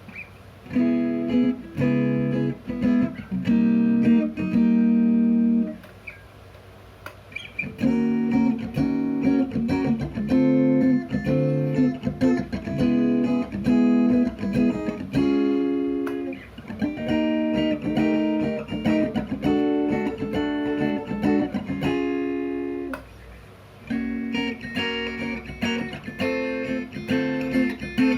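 Ibanez GIO GRX40 electric guitar played with a clean tone: chords strummed and left to ring one after another, with two short pauses, around six seconds in and near twenty-three seconds.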